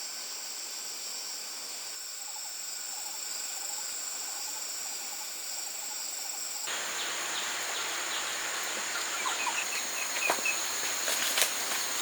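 Rural ambience: a steady high insect drone with small bird chirps. About two-thirds in it cuts to a louder background with more chirping and a few sharp clicks near the end.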